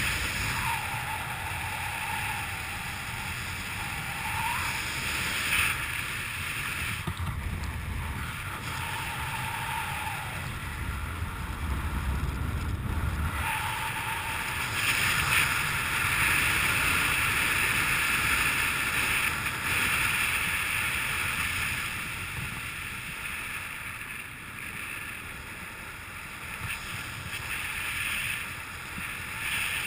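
Wind rushing over the camera's microphone during a descent under an open parachute canopy, steady throughout, with a few brief faint whistles in the first half.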